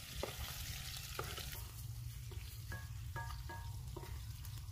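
Onions and ginger sizzling in hot oil in a large metal cooking pot while a long wooden spoon stirs them, with scattered knocks and scrapes of the spoon against the pot. There is a steady low rumble underneath.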